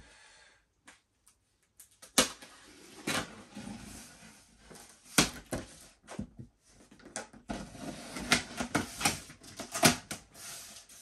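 A knife slitting packing tape on a large cardboard carton, then the cardboard flaps being pulled open: a string of irregular sharp scrapes, rips and clicks, starting about two seconds in.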